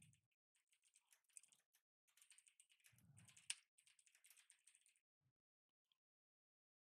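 Faint computer keyboard typing: a quick run of keystrokes that stops about five seconds in.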